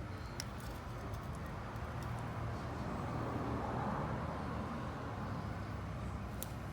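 Background road noise: a vehicle passing, swelling about three to four seconds in over a steady low hum, with a few faint clicks.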